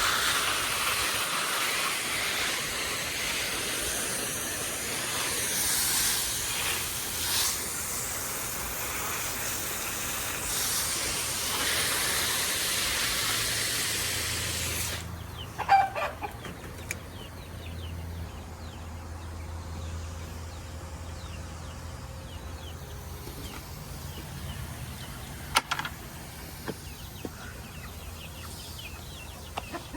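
A garden hose spraying water with a steady hiss, cut off sharply about halfway through. After that, chickens cluck, with a few short louder calls.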